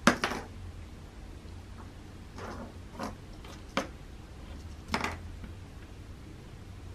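Small plastic pull-back toy cockroach knocked about on a hardwood floor by a cat's paw: about five sharp clicks and clatters, the loudest right at the start and another about five seconds in.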